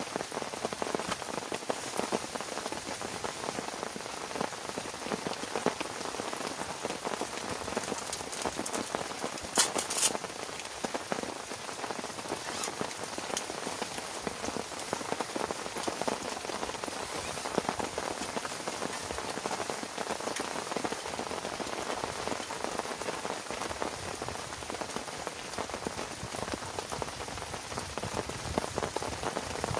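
Heavy rain falling steadily, a dense patter of drops, with a couple of sharper taps about ten seconds in.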